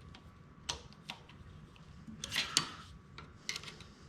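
Light clicks and taps of tools and small metal parts being handled during a repair, a handful of separate short knocks with the loudest pair about two and a half seconds in.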